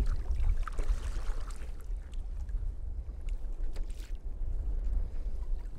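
Sea kayak moving through choppy water: paddle blades dipping and splashing, water lapping against the hull. Wind rumbles on the microphone throughout.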